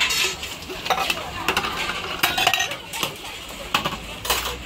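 A metal ladle stirring and knocking against a large stainless-steel pot of boiling water, making a series of sharp clanks and scrapes.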